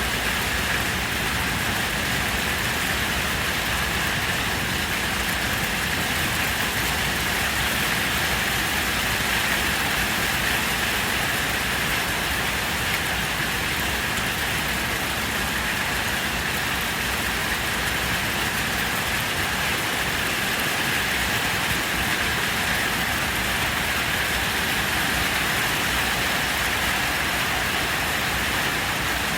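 Heavy rain pouring steadily, an even hiss with no separate claps or hits.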